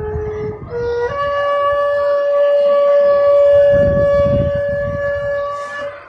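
Bamboo transverse flute (bansuri) played: two short notes stepping up in pitch, then one long note held steady for about five seconds.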